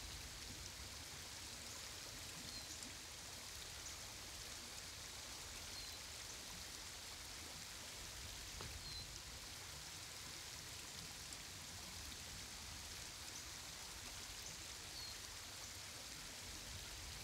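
Shallow woodland stream trickling steadily, with a few faint short high chirps scattered through.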